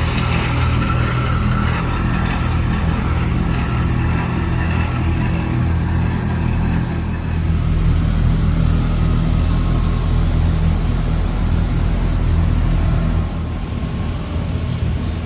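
Motor vehicle engine running steadily with a low hum and road noise; the sound drops slightly about thirteen seconds in.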